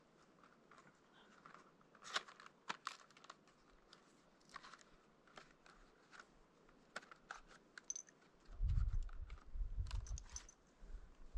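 Faint scattered clicks and rustles of gear being handled, then wind buffeting the microphone with low rumbling gusts from about eight and a half seconds in.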